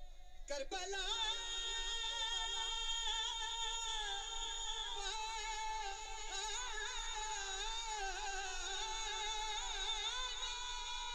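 A man singing devotional Urdu verse unaccompanied into a microphone. Starting about half a second in, he draws out long wavering held notes with ornaments and vibrato rather than clear words.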